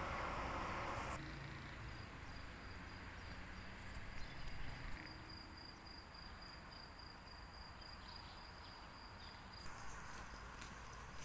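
A cricket's faint, steady, high trill, starting about a second in and stopping near the end, over a low background rumble.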